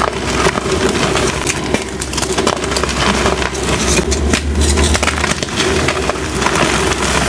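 Blocks of reformed gym chalk crushed and crumbled between the fingers: a dense, irregular run of crunches and crackles as the chalk breaks and falls to powder.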